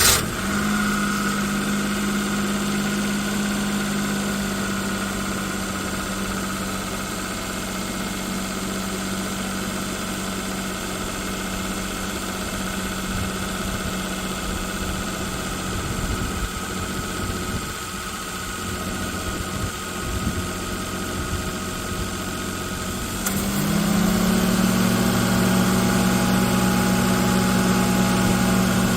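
Car engine idling steadily just after being started, filmed as an abnormal engine noise. About three-quarters of the way through, the note dips briefly and then carries on louder.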